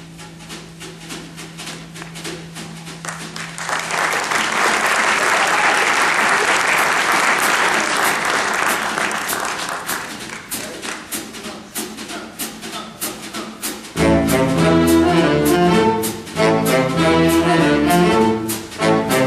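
A low held note dies away, then the audience applauds for several seconds while a drum kit keeps a steady beat. About fourteen seconds in, the jazz band comes in loudly with violin on the next tune.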